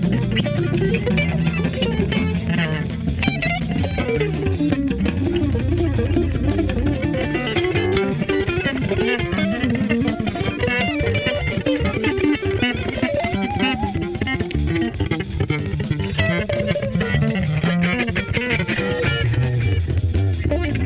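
Funky groove played on bass guitar and electric guitar over a steady drum beat.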